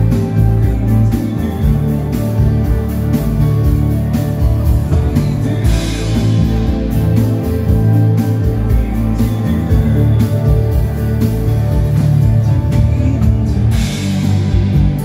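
Swedish dansband playing live: full band music with a strong, steady bass line.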